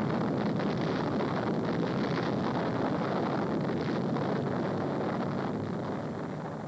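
Rumbling roar of a large explosion, holding steady and then slowly fading near the end.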